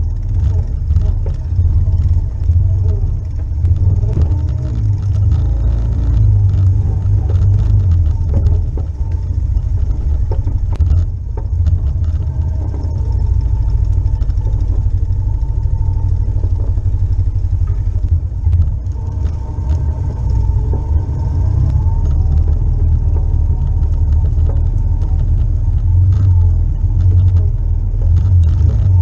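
Four-wheeler (ATV) engine running as it rides a rough trail, heard from a camera mounted on the front of the machine: a loud, steady low rumble with frequent knocks and rattles from the bumpy ground.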